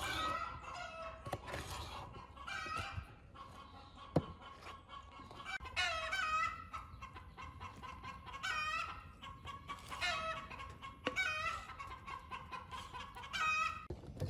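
Chickens clucking and cackling in short, repeated calls every second or two. A sharp knock comes about four seconds in and another near eleven seconds.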